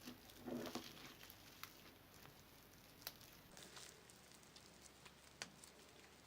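Faint crackling and squishing of crunchy slime with foam beads being kneaded by hand, with scattered small clicks.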